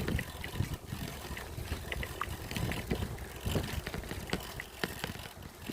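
Wind buffeting a phone's microphone while riding a bicycle: a gusty, uneven low rumble with scattered light clicks and rattles.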